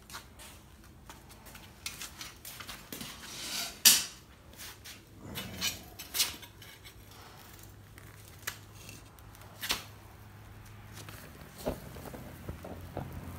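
Steel crucible tongs and pouring shank clinking and clanking as a red-hot crucible of molten copper is lifted and set into the shank, with several sharp metal clanks, the loudest about four seconds in. Near the end the molten copper starts pouring into the sand mold with a faint crackle.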